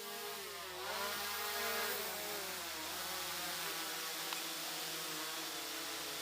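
SJRC F11s 4K Pro quadcopter's motors and propellers whining as it flies its return-to-home, the pitch dipping and rising about a second in, then holding fairly steady.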